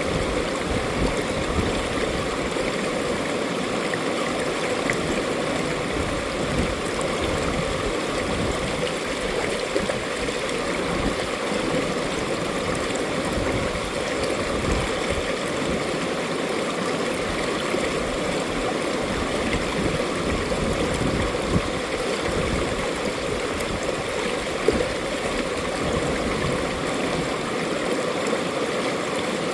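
Mountain stream water running over rocks, a steady rushing and gurgling flow.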